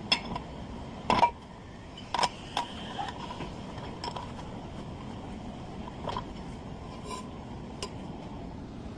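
Scattered metal clinks and knocks from tools and parts being handled, several with a short ring after them. The loudest comes about a second in.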